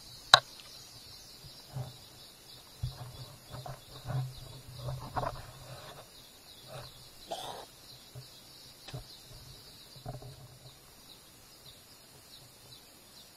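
Outdoor ambience: steady high-pitched chirping of birds, with irregular rustles and a sharp knock about half a second in.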